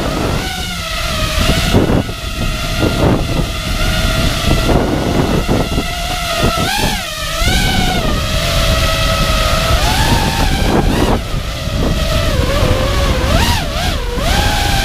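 Electric motors and propellers of a 5-inch FPV racing quadcopter whining in flight, the pitch swooping up and down again and again as the throttle is worked, with wind noise underneath.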